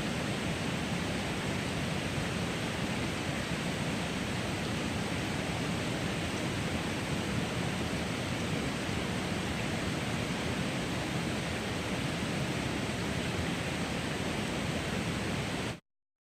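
Steady rushing of a river, an even wash of water noise with no breaks, which cuts off suddenly near the end.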